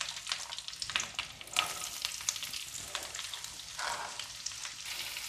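Hot oil sizzling in a nonstick frying pan with tempering spices and chopped onions. A wooden spatula scrapes and stirs, with short clicks and scrapes over the steady hiss.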